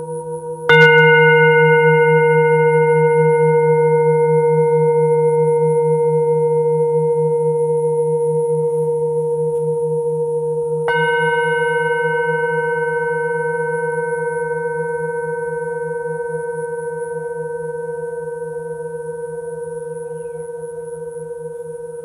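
Himalayan metal singing bowl struck twice, about ten seconds apart. Each strike rings on as a long, slowly fading hum that wavers as it dies away.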